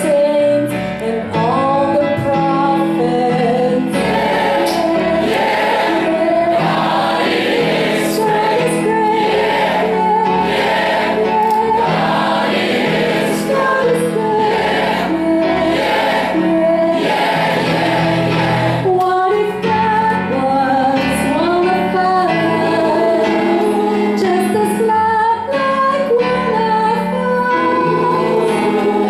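A choir singing a song with instrumental accompaniment and a steady bass line underneath.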